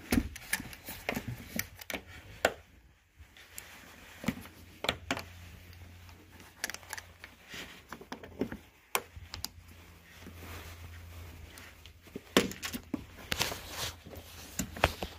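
Irregular light clicks and knocks throughout: hands pressing a Ford Explorer's rubber door weather seal and its push-in clips into place, mixed with the camera being handled. A low steady hum sits underneath.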